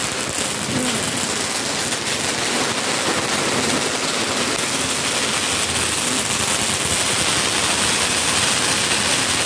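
Ground fountain firework spraying sparks: a steady, dense crackling hiss.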